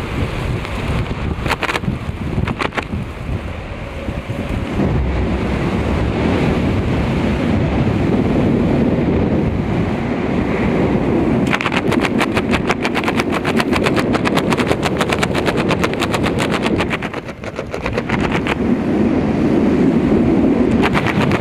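Skydiving airflow rushing over a helmet-camera microphone. About halfway through, a rapid flapping rattle sets in and runs for several seconds, stops briefly, then starts again near the end.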